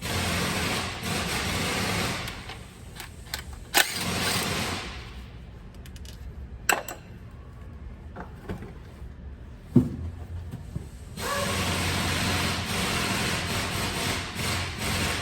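Mack MP8 common-rail diesel engine being cranked over in two spells, one of about five seconds and one of about four seconds, with a few sharp clicks in between. The engine is hard-starting, a fault put down to leaking fuel injectors.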